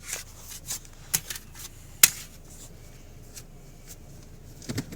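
Light handling noise inside a car: a few short, sharp clicks and rustles, the loudest about two seconds in, over a low steady hum.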